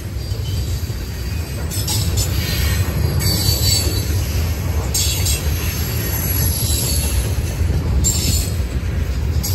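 Freight train of covered hopper and tank cars rolling past close by: a steady low rumble of the wheels on the rails. Several short bursts of high-pitched wheel squeal come through every second or two.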